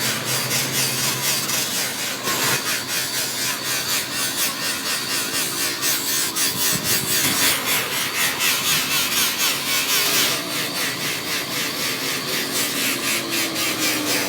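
Rhythmic back-and-forth rubbing on a plastic headlight lens, about two strokes a second, as the foggy lens is sanded or scrubbed clean by hand.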